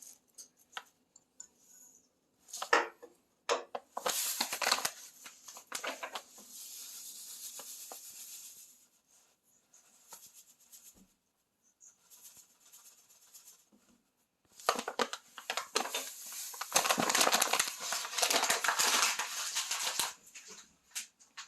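Packaging crinkling and tearing in irregular bursts, with a steadier hiss a few seconds in and a longer, louder stretch of crinkling near the end.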